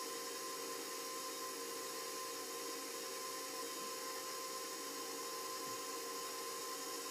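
Steady hiss with a faint, even hum of a few held tones, unchanging throughout, with no distinct knocks or clatter.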